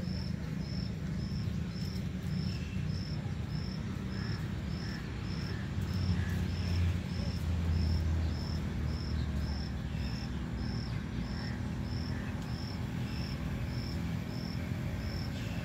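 Insect chirping at a steady rate, a little under two short high chirps a second, over a low rumble that swells a little between about six and nine seconds in.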